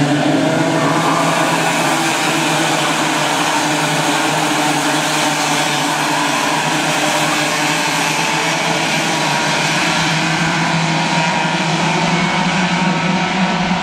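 A pack of Raket two-stroke racing kart engines running together, a steady, loud drone of several engines at once. Their pitches shift slightly as the karts go through the corners.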